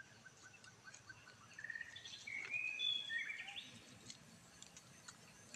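Birds calling: a run of short whistled notes, then a quick trill and a few whistles that rise and fall, loudest about two to three seconds in. Faint ticks and rustles sound underneath.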